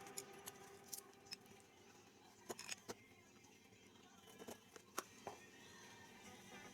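Near silence broken by about nine faint, sharp clicks and light taps at irregular intervals, a few of them close together in the middle and again later on.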